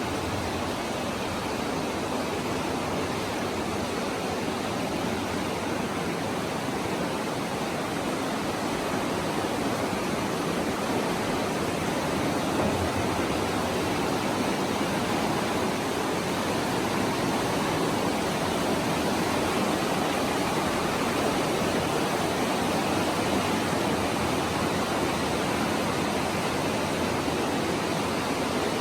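Stream water rushing through a cave, a steady, even noise with no breaks or changes.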